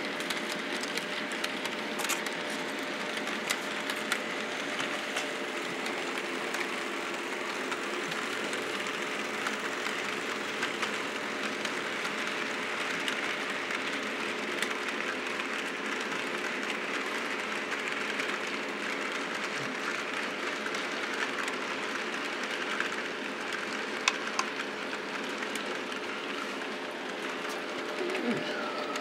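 HO-scale model freight train running on the layout track: a steady hum with the rolling rattle of the cars, and a few sharp clicks along the way.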